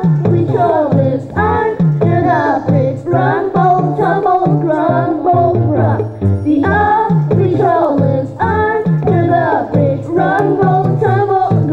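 A song: voices singing over backing music, with a bass line stepping along in even beats.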